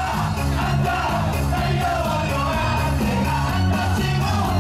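Pop music with singing and a steady beat, played over a ballpark's loudspeakers.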